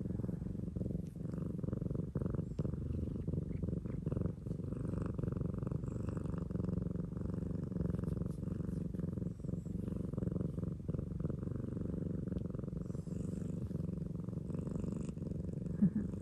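Black-and-white cat purring loud and steady while being stroked, a big, continuous purr. One brief louder sound stands out near the end.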